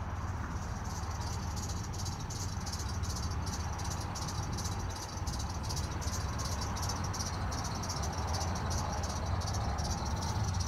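Outdoor ambience: a steady low rumble, with a rapid, evenly repeating high-pitched chirping of about three or four pulses a second running over it.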